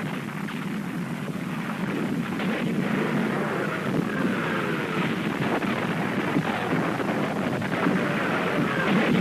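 A steady, dull rumble like engines, with scattered crackling, growing slowly louder: the battle sound effects laid over archival landing footage.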